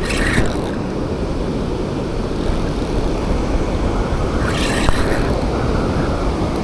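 Wind buffeting the microphone over breaking surf, a loud steady rumble, with brief hissing rushes about half a second in and again near five seconds.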